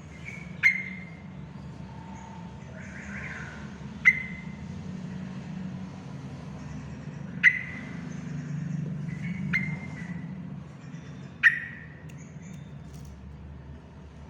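Yellow-vented bulbul (trucukan) giving five short, sharp call notes a few seconds apart, with a steady low rumble underneath.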